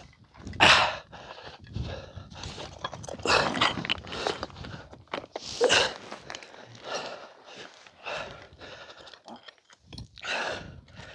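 Irregular scuffs and rustles of people clambering over rock, with a few louder bursts of noise.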